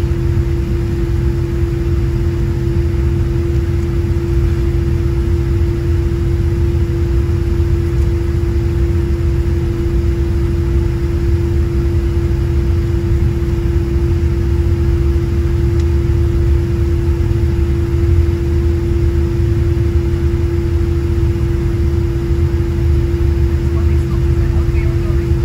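Cabin noise of a Boeing 787-10 taxiing: a steady low rumble with one steady hum over it, the engines at taxi power.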